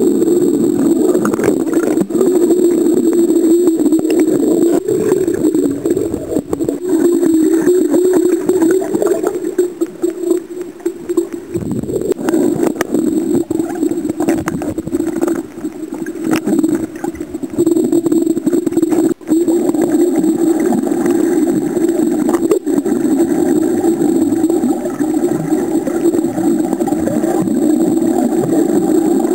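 Muffled underwater noise picked up by a submerged camera: a steady low hum with scattered knocks and clicks.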